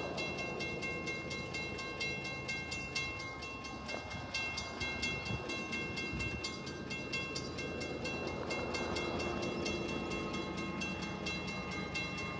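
Railroad grade-crossing warning bell ringing in rapid, evenly spaced dings as the crossing gates come down, signalling an approaching train.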